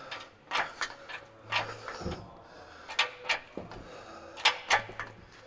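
Sharp, irregular clicks and light knocks, a couple a second, from a transmission jack and the auxiliary transmission it carries being worked into place under a truck.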